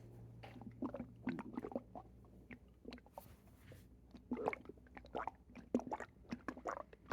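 Stomach and bowels making watery gurgling noises, like a water bed, just after a bowel movement. Short, irregular gurgles and squelches come in two busy clusters, with a quieter stretch in the middle.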